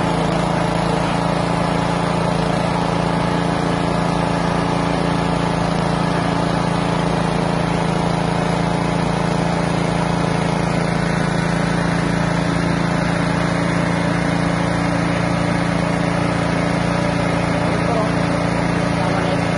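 Small stationary engine running steadily at constant speed, driving a fish-feed pellet machine under load as it is fed a dry mix and extrudes pellets.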